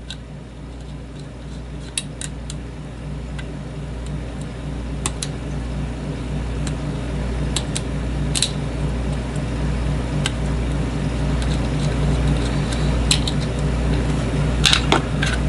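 Scattered light metallic clicks and ticks of a padlock and small tools being handled, over a steady low hum that slowly grows louder.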